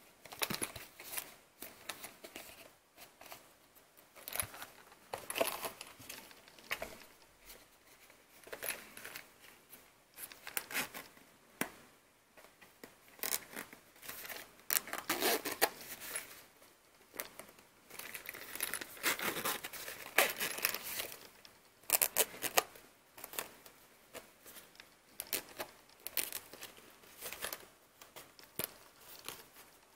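Handling noise from a zippered hard-shell phone case: irregular scraping, rustling and sharp clicks of plastic and fabric as it is turned over and worked by hand.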